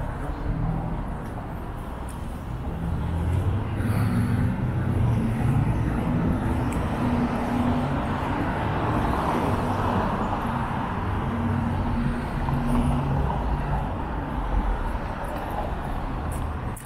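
Street traffic: a motor vehicle's engine running close by, with tyre and road noise swelling through the middle and easing near the end.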